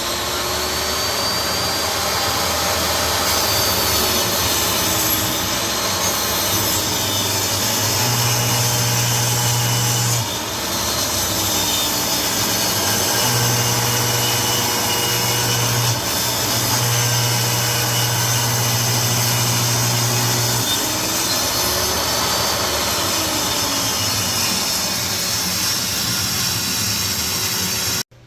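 Table saw running and ripping a straight edge along an odd-shaped reclaimed church pew rail held in a straight-line rip jig. The blade's pitch dips and recovers several times as the cut loads it.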